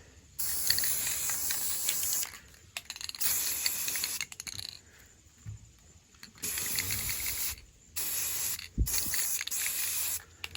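Aerosol spray paint can spraying model-kit parts in five short bursts of hiss, each a second or two long with brief pauses between. A low thump falls between the last two bursts.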